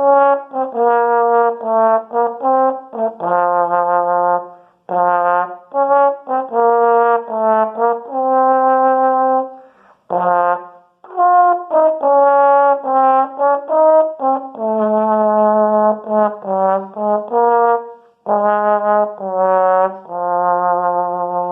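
Yamaha 354 tenor trombone played solo: a melody of separate sustained notes with short breaks for breath, loud and full-toned.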